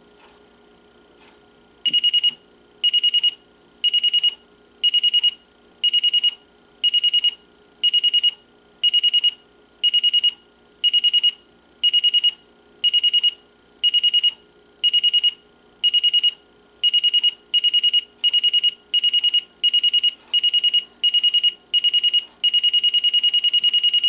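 Zenith Z212G clock radio's electronic alarm buzzer going off with its escalating pattern: a high-pitched beep starting about two seconds in, pulsing about once a second, then pulsing faster, and finally holding one steady tone near the end before it cuts off.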